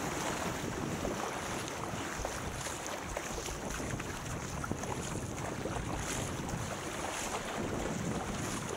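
Wind buffeting the microphone of a camera mounted on a surfski, over the splash and drip of the paddle blades entering the water and the hull running through the sea. The sound is a steady rushing noise with scattered small splashes.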